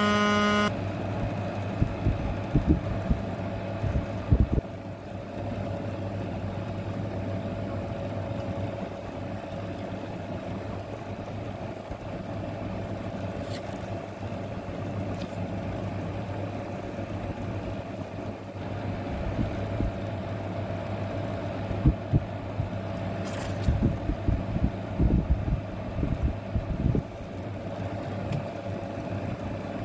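A steady low hum with a fainter, higher steady tone over it, broken by scattered sharp clicks and knocks that come more often in the second half.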